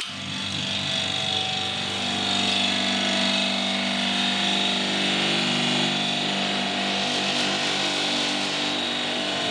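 Powered motorcycle lift table raising a loaded bike: its drive runs with a steady hum and hiss, switched on by the push button.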